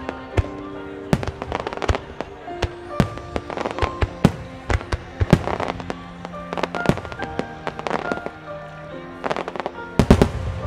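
Starmine fireworks shells launching and bursting in quick succession, many sharp reports, with a dense run of bursts about ten seconds in. Music with held tones plays along with the display.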